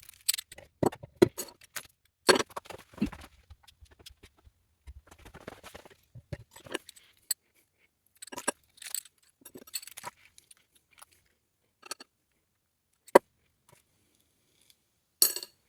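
Small metal parts of a Baton 50mm disc detainer padlock clicking, clinking and rattling in irregular bursts as the lock is taken apart by hand, with a sharp click about thirteen seconds in and a short rattle near the end.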